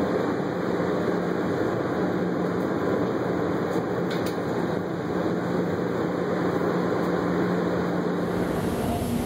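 Steady rumble of an underground airport shuttle train running through its tunnel, with a constant low hum. The sound changes character about eight and a half seconds in.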